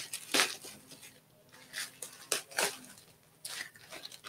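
Cardboard box of washing soda being torn open by hand: a handful of short tearing and rustling noises.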